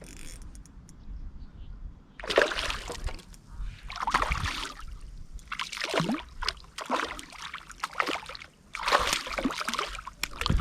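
Water splashing and sloshing in about five separate surges, each under a second and a second or two apart.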